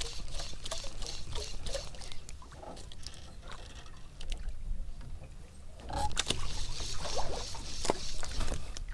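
Sea water lapping, splashing and trickling around a small fishing boat, with irregular clicks and small splashes; louder from about six seconds in.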